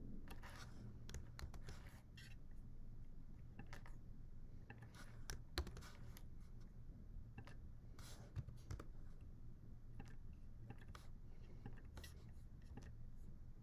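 Faint, irregular clicks of a computer keyboard and mouse, over a low steady hum. The sharpest click comes about five and a half seconds in.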